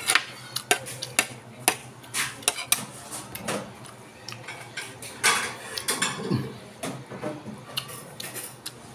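Close-up eating by hand: fingers scooping rice and bamboo shoots off a plate, with irregular clicks and taps against the plate and the wet sounds of chewing.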